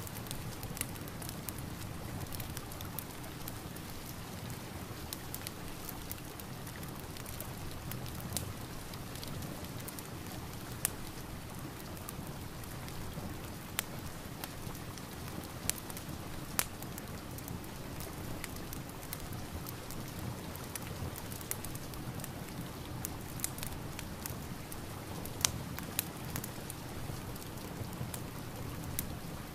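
Steady rain together with a crackling wood fire: an even hiss of rain with sharp pops and crackles scattered through it, a few louder than the rest.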